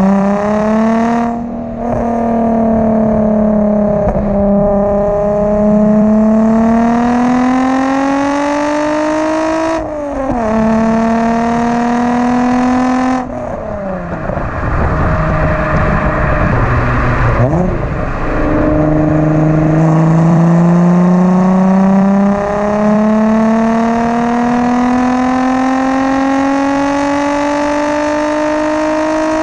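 VW Corrado VR6 exhaust heard right at the tailpipe under hard acceleration. The engine note climbs steadily through the revs in long runs and drops sharply at each gear change, several times. About midway the revs fall away and waver for a few seconds before the next long pull.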